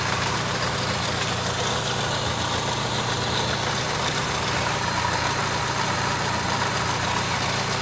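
Fiat Uno engine running steadily, with the front wheel on its new hub and bearing turning smoothly, free of the noise from the old warped hub.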